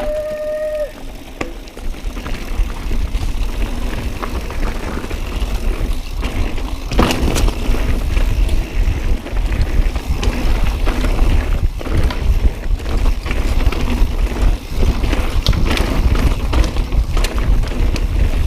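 Mountain bike riding over a rocky trail: wind rumbling on the camera microphone, with tyres rolling over rock and the bike knocking and rattling over the rocks. A short steady squeal in the first second.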